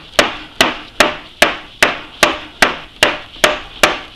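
Mallet striking the end of an Atlas 10F lathe's headstock spindle in a steady rhythm, about ten sharp knocks at roughly two and a half a second, each with a short ring. The blows are driving the spindle forward out of the headstock.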